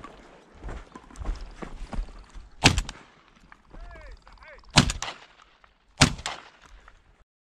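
Three shotgun shots fired in quick succession: the first about two and a half seconds in, the second about two seconds later, the third just over a second after that.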